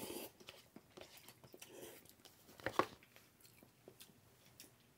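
A person slurping instant cup noodles off a fork, then chewing quietly, with small scattered clicks and one sharper click a little under three seconds in.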